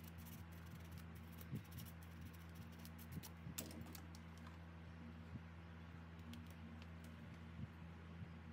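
Scattered light clicks and taps of small parts being handled, over a steady low hum.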